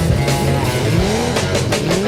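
Demolition derby car engines revving up and down over and over, with background music, and a few sharp clattering noises about one and a half seconds in.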